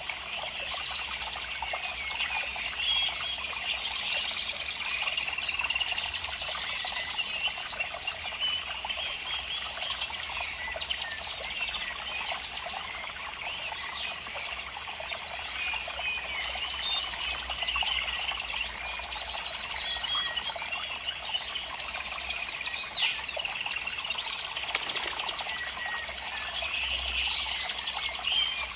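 Many small birds chirping and trilling at once, a dense overlapping chorus of high chatter.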